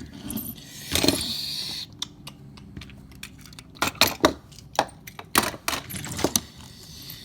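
Hard little toy cars being handled and knocked together: a scrape about a second in, then a run of sharp clicks and clacks.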